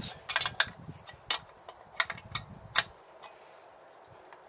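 A handful of sharp clicks and knocks of hard parts or tools being handled during the fork strip-down, spread over the first three seconds. Then only low, steady room tone.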